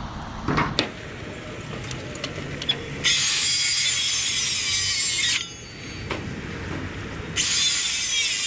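Makita circular saw cutting through timber twice, each cut a loud, steady whine of about two seconds, the first starting about three seconds in and the second about seven seconds in. Before them, a knock as the timber is set down.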